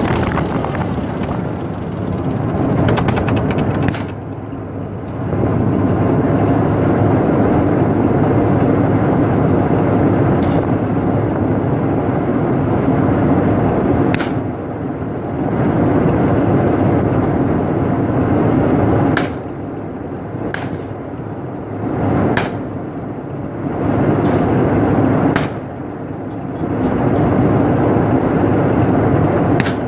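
TAM tank running with a steady mechanical rumble that swells and eases several times, with sharp clicks or knocks every few seconds.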